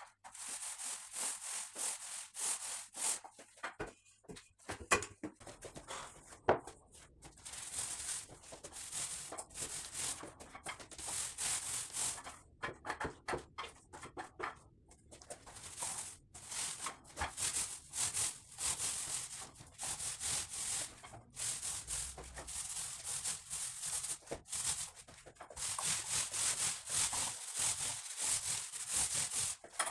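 Paint roller on an extension pole being worked up and down a wall with wet matt emulsion: a repeated sticky, crackling hiss with each stroke, broken by a few short pauses.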